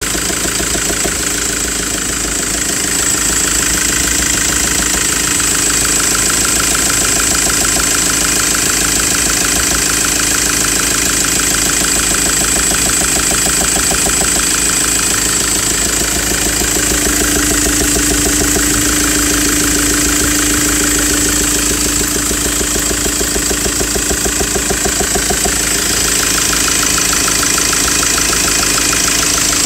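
Ford Transit engine idling steadily with a rapid, regular knock running through it: the engine knock the owner is showing.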